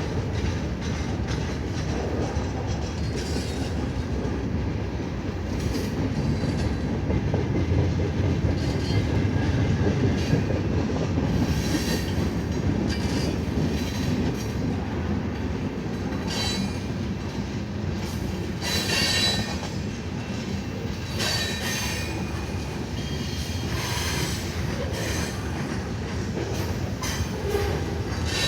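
CN train cars rolling past with a steady rumble and rattle of wheels on the rails, with brief high-pitched wheel squeals now and then, most in the second half.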